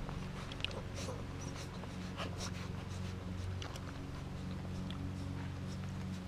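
Golden retriever puppies nursing from their mother: soft suckling and snuffling with scattered small clicks, over a steady low hum.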